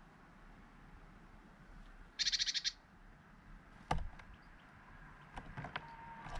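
A small bird gives one short, rapid churring call about two seconds in. Just before four seconds a sharp knock comes as a great tit lands on the wooden feeder tray, followed later by a few light clicks as it picks among the nuts and shells.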